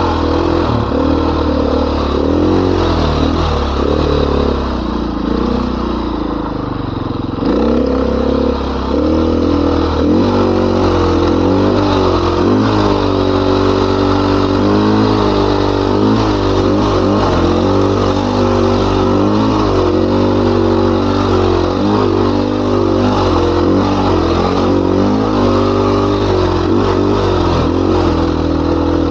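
Dirt bike engine revving up and down as the throttle is worked, its pitch rising and falling constantly. About five seconds in it eases off for a couple of seconds, then picks up sharply again.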